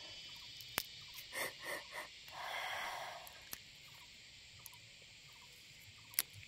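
A woman's quiet breathing between sung phrases: a few short sniffs, then a longer breath about two and a half seconds in, with a few small clicks.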